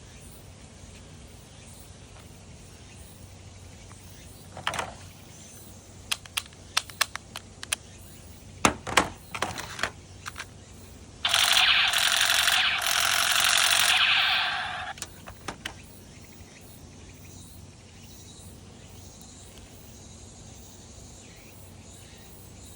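Toy blaster being tested: a series of sharp plastic clicks and clacks as it is handled and readied, then a loud continuous burst of about four seconds as it fires.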